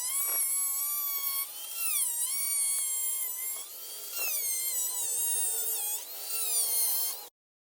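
High-speed rotary cutting tool whining as it cuts through the plastic bumper lip. Its pitch dips several times as the cut loads it and climbs again as it frees up, and it cuts off abruptly near the end.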